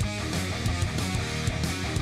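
Rock background music: strummed electric guitar over a steady drum beat.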